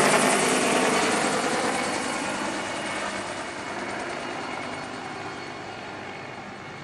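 Firefighting helicopter's rotor and engine noise, fading steadily as it flies away.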